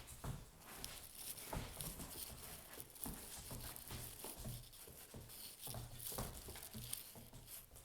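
A puppy scuffling about on a hard floor: faint, irregular patter of paws with light thumps and rustles.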